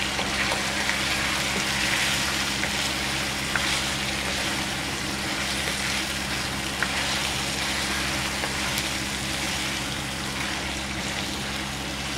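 Chicken pieces with ginger and garlic frying in hot oil, a steady sizzle, with a few light clicks as a wooden spoon turns them in the pan.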